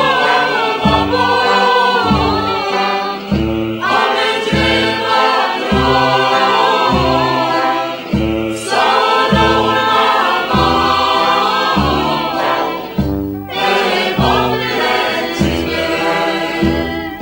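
Music: a choir singing over a bass line that pulses about twice a second.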